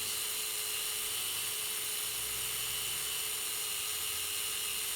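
Slot car's small electric motor running steadily at speed with a high whine, spinning the rear wheels in reverse while the tyres are trued.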